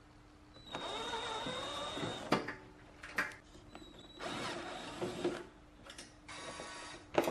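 Cordless drill-driver running in three short bursts as it backs out the rear-panel screws of an amplifier's metal case, with sharp clicks between the runs and a louder clatter near the end.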